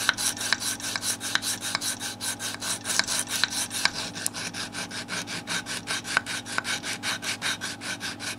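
A thin white ash shim rubbed by hand on sandpaper in quick, even back-and-forth strokes, about five a second, taking wood off so it fits the neck's dovetail joint.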